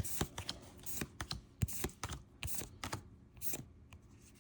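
Trading cards being handled: an irregular run of light clicks and slides as cards are flipped through one by one, thinning out near the end.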